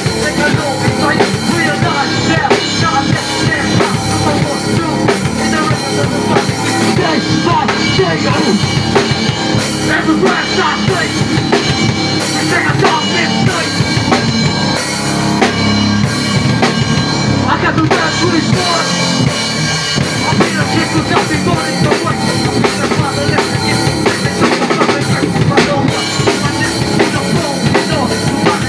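Rock band jamming live: a drum kit, with bass drum and snare, played under electric guitar.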